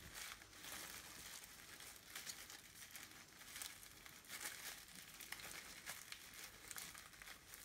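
Faint intermittent crinkling and rustling of plastic, bubble wrap and plastic sheeting handled as hands push wool top together around a bubble-wrap roll.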